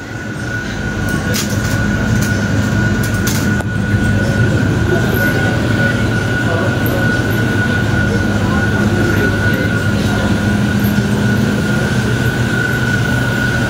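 Shopping trolley rolling over a supermarket's tiled floor, over a steady store hum with a constant high-pitched whine. There are a few light clicks in the first few seconds.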